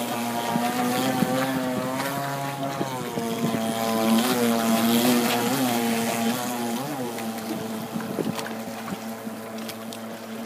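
The 26cc two-stroke gas engine of a 51-inch R/C speedboat running at speed, a steady engine note that wavers in pitch around the middle and grows fainter toward the end as the boat runs away.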